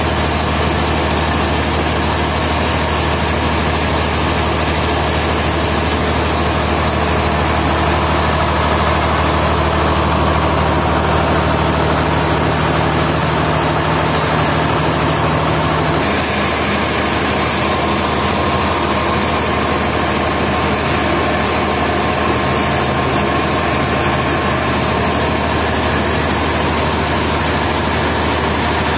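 Sawmill machinery's engine running steadily, with a low hum that shifts in pitch about halfway through.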